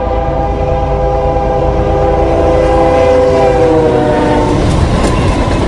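Diesel locomotive's air horn blowing one long, steady chord as the train reaches the crossing, dipping slightly in pitch as it passes and stopping about four and a half seconds in. Under it the locomotive rumbles, then the clatter of the passing train takes over.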